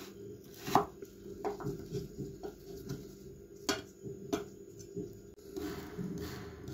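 Chef's knife cutting raw venison on a wooden cutting board: irregular sharp knocks of the blade on the wood, the loudest about a second in, over a steady low hum. The knocks give way to a softer rubbing sound near the end.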